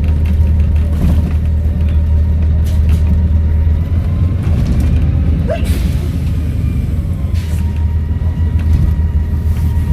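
Volvo B7RLE bus engine running with a steady low drone and a thin, steady turbo whistle, along with occasional rattles and a short squeak about halfway through.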